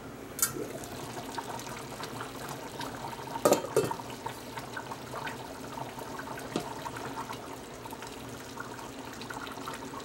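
Stainless steel pot lid lifted off with a clink about half a second in, then a black ladle stirring and scooping through pieces of goat meat in hot tamarind soup, the liquid sloshing. A louder clatter of the ladle knocking the pot comes about three and a half seconds in.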